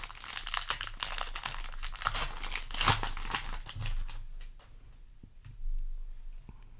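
Foil booster-pack wrapper crinkling and tearing as the pack is opened, a dense crackle for about four seconds, then much quieter with a few faint clicks.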